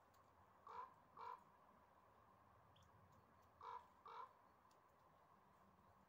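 Crow cawing: four short caws in two pairs, the pairs about three seconds apart.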